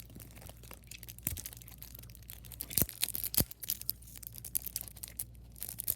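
Yu-Gi-Oh card deck packaging being opened by hand: faint crinkling and scraping, with a few sharp clicks.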